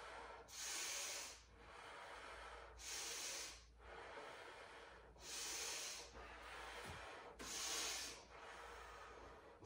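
A woman breathing slowly and audibly through the nose in an even rhythm while holding a yoga pose. Four sharp, breathy breaths come about two and a half seconds apart, each under a second long, with quieter breath between them.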